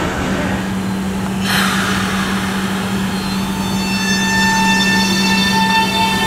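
Nankai 8300 series train's Hitachi IGBT VVVF inverter beginning to sing as the train pulls away: a set of high, slowly rising tones sets in about three seconds in over a steady low hum. A short hiss comes about a second and a half in.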